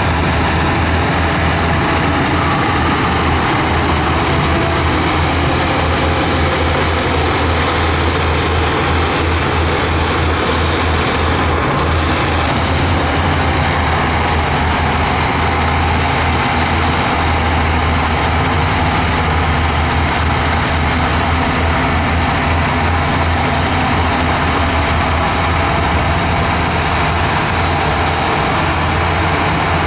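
Diesel engine of a heavy earthmoving machine, a bulldozer or excavator, running steadily under work with a continuous low drone.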